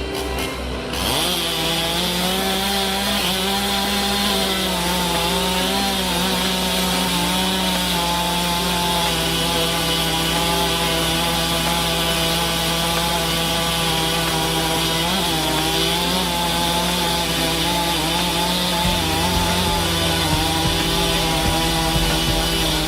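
Two-stroke chainsaw running at high revs while cutting through wood. Its pitch settles about a second in and then holds steady, wavering slightly under the load of the cut.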